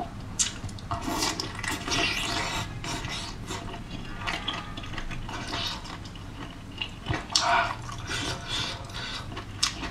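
Wet chewing and lip-smacking of chewy, spicy squid tentacles close to the microphone, with irregular sticky clicks and squelches.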